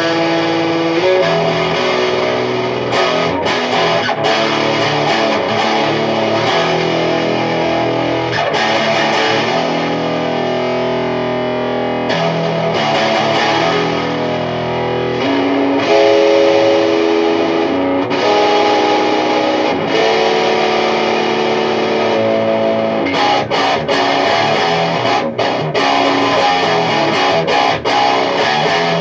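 Distorted electric guitar in drop B tuning, played through a Mesa/Boogie Dual Rectifier on the neck pickup of a set of Bare Knuckle Painkillers in humbucker mode, with the gain at 12 o'clock. Sustained chords and held notes give way to choppier, stop-start playing near the end. It is recorded through a camera microphone.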